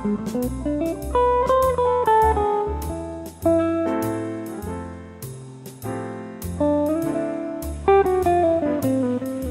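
Background music: guitar playing a melody over a bass line, with a steady beat.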